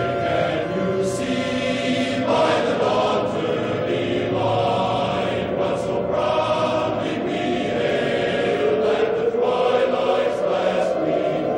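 Choir singing a slow, sustained choral piece, the national anthem played for the station's sign-off, with several held notes; from about two-thirds of the way in one tone slides slowly upward.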